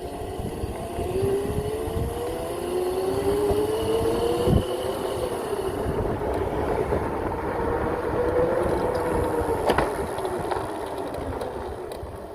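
Razor MX650 electric pit bike with an upgraded 5000 W motor being ridden hard on a dirt trail: the motor's whine rises and falls in pitch with speed over a rough rumble. There is a sharp knock about four and a half seconds in and another near ten seconds, and the sound fades near the end.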